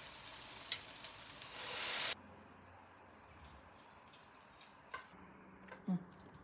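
Chicken broth poured into a hot pot of bulgur toasted in ghee, sizzling and hissing louder for about two seconds, then cut off suddenly. After that, a quiet stretch with a couple of faint clicks.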